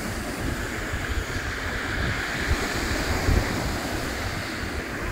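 Sea waves breaking and washing up a shingle beach in a steady surf, with wind buffeting the microphone in gusty low rumbles.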